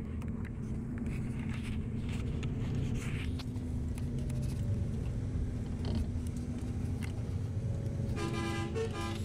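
Steady engine and road rumble heard from inside a moving vehicle, with a horn honking for about a second near the end.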